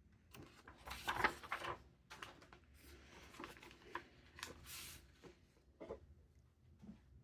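Packaging being handled during an unboxing: an irregular run of rustles and scrapes with small sharp knocks and clicks, loudest about a second in.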